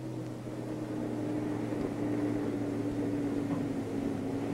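Engines of a passing truck convoy, a steady drone with one held tone that sinks slightly in pitch while the sound grows gradually louder.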